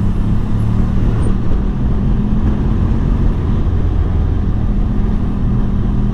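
Benelli TRK adventure motorcycle running at a steady cruise through town, with a steady engine drone and road and wind noise.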